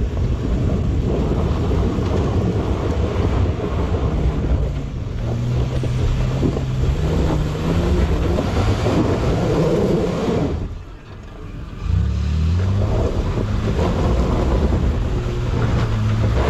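Toyota 4x4's engine working hard up a steep dirt climb, its revs rising and falling as the driver works the throttle. About ten and a half seconds in, the engine drops off for about a second, then revs up again.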